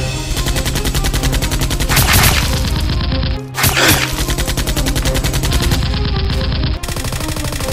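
Rapid automatic gunfire sound effects, a fast even stream of shots, laid over background music, with two louder noisy swells about two and three and a half seconds in.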